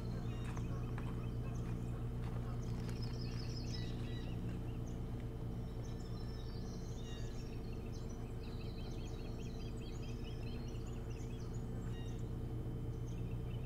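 Osprey calling on the nest: runs of rapid, high chirping whistles starting about two and a half seconds in and carrying on through most of the rest, over a steady low hum.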